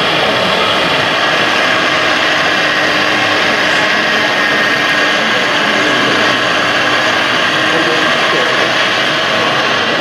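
Steady whir of radio-controlled construction machines' electric motors and hydraulic pumps, mainly a scale Liebherr 956 hydraulic excavator working its arm and bucket, over the constant din of a busy hall.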